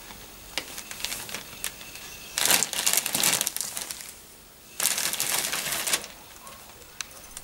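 Plastic bag crinkling as a cat moves its head around inside it: a few light crackles, then two loud bouts of crinkling, each a second or so long, one near the middle and one about five seconds in.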